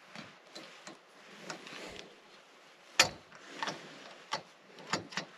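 Irregular clicks and knocks of camera clamps and mounting hardware being handled, with one sharp knock about three seconds in standing out as the loudest.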